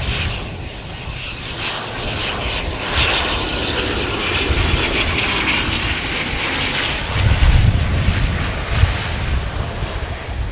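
ATR 42-600 twin turboprop airliner landing, its engines giving a steady high whine over the propellers' drone. The whine fades about seven seconds in, and a louder low rumble follows for a couple of seconds.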